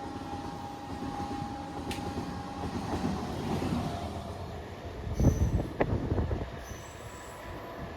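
Indian Railways train running past on the track: a steady rumble of wheels on rails, with a few loud knocks about five to six seconds in as the wheels cross the rail joints.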